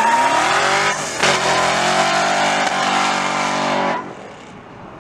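A car accelerating hard away: the engine revs rise, break off briefly about a second in, then climb again and hold before dropping off sharply about four seconds in.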